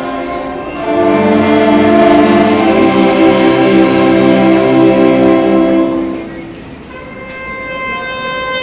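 Church orchestra and band playing an overture in sustained chords. The music swells loud about a second in and eases back to a softer passage of higher held notes about six seconds in.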